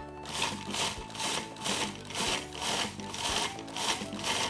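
Countertop food processor chopping a sticky mix of nuts, dates, raisins and coconut, its motor running with a regular beat about three times a second.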